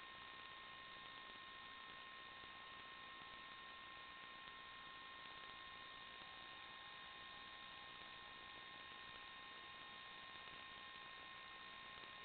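Near silence: a faint steady hiss with two thin, steady high tones, the noise floor of an analog FPV video recording.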